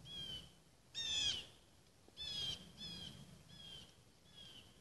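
A bird calling from the woods: a series of short, high calls, about one every half second to a second, the loudest about a second in, growing fainter near the end.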